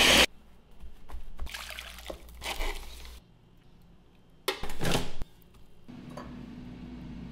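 A blender running cuts off just after the start, then a thick liquid pours and drips in uneven spurts for a couple of seconds. About four and a half seconds in a short loud burst of noise lasts under a second, and near the end a low steady hum sets in.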